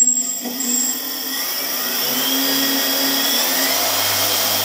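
Four brushless quadcopter motors (Sunnysky X2212 980Kv) with propellers spinning up as the throttle is slowly raised toward 25% for compass-motor calibration, a whine rising in pitch that settles into a steady hum near the end. A brief high-pitched tone sounds right at the start.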